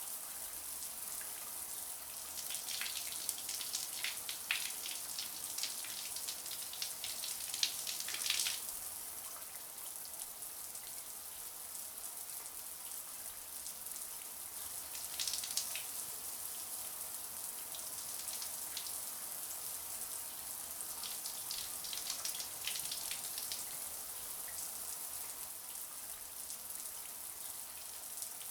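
Shower water running steadily, a high hiss of spray with irregular spatters as the stream hits a surface, heavier in short stretches.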